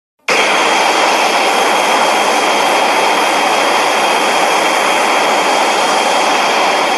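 Shin Godzilla film sound effect, edited: a loud, steady rushing hiss with a thin high whine held over it, starting abruptly about a quarter of a second in and running on without change.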